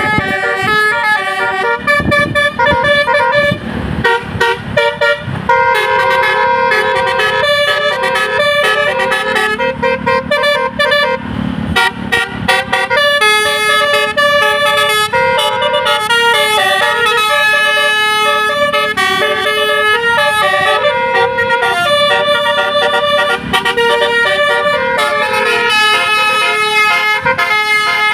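Bus telolet 'basuri' musical air horn playing a melody: a long run of multi-tone horn notes stepping up and down, sounding almost without pause. A short burst of noise cuts in around eleven seconds in.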